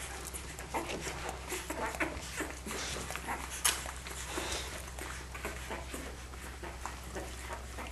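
Australian Kelpie puppies suckling from their mother: a run of short, irregular wet clicks and smacks, with the odd faint squeak.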